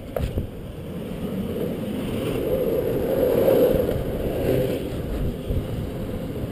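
Longboard wheels rolling over a concrete deck: a steady rumble that swells to its loudest about halfway through, with one sharp knock right at the start.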